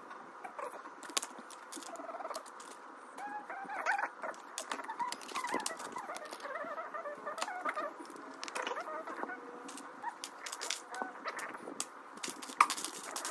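Plastic building bricks clicking and clattering as they are picked from a cardboard box and pressed together, with one sharper click near the end. Faint wavering chirps sound in the background for several seconds in the middle.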